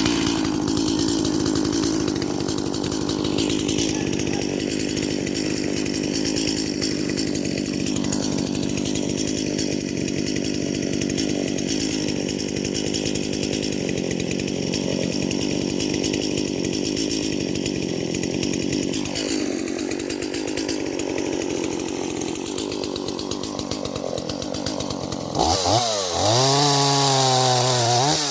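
Stihl MS170 two-stroke chainsaw idling steadily, just restarted after a hard start. About 25 seconds in it is revved up and back down a few times.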